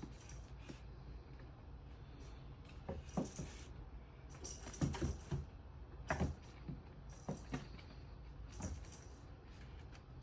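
Cat teaser toy jingling and rattling in short irregular bursts as cats bat at it.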